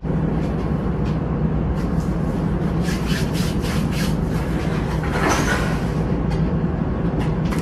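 Steady drone of a small chemical tanker's onboard machinery, a low rumble with a constant hum, with scattered light clicks and rustles over it.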